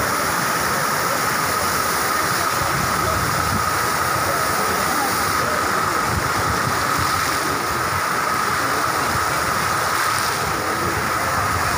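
Water jets of a large multi-jet park fountain spraying and falling back into the basin: a steady rush of splashing water.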